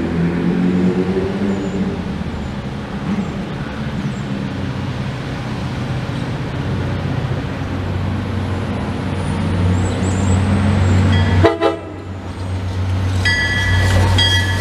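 MBTA commuter rail diesel locomotive approaching, its engine drone building, then sounding its horn: a brief blast about three seconds before the end and a longer blast held near the end.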